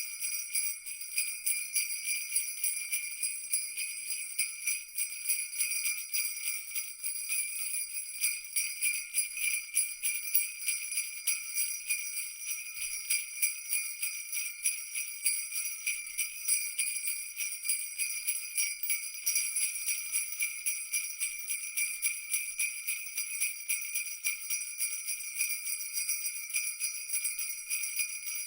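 Jingle bells (sleigh-bell style cascabeles) shaken continuously in a dense, steady, high-pitched jingling.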